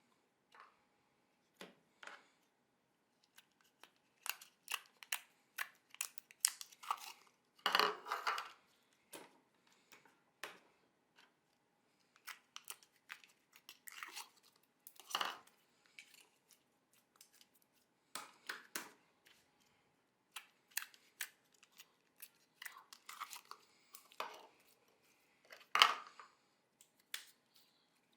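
Slime being squeezed, stretched and poked by hand, giving irregular sticky clicks, pops and crackles in clusters with short pauses between. The loudest crackly bursts come about eight seconds in and again near the end.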